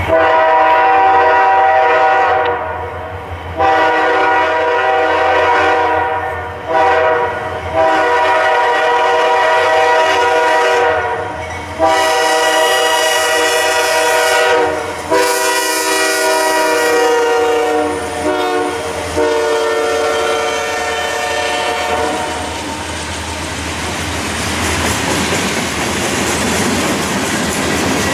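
Norfolk Southern freight train led by a GE D9-44CW locomotive blowing its multi-chime air horn for a grade crossing: a series of long blasts with a short one between, sounded over about twenty seconds as it approaches. The horn then stops and the passing freight cars take over, with steady wheel and rail noise and clickety-clack over the rail joints.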